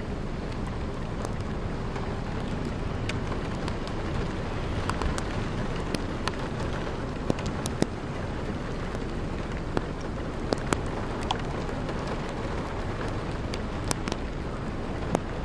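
Wind and rain during a tornado: a steady rushing noise with scattered sharp ticks of raindrops striking nearby surfaces.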